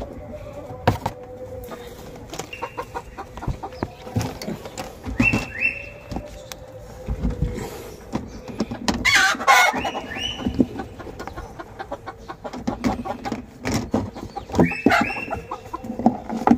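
Chickens clucking and calling in short repeated notes, with a louder, wavering call about nine seconds in. A steady low hum runs underneath.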